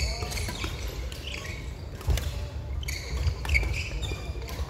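Badminton play in a large sports hall: scattered sharp racket-and-shuttlecock hits and short squeaks of court shoes on the wooden floor.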